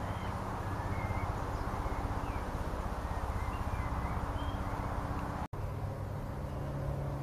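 Small birds chirping now and then over a steady low outdoor rumble. About five and a half seconds in, the sound cuts out for an instant, and after that only the low rumble is left.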